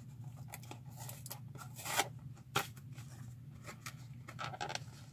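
Packaging being handled and opened: soft scraping and rustling, with a louder rasp about two seconds in and a sharp click just after it, then another scrape near the end.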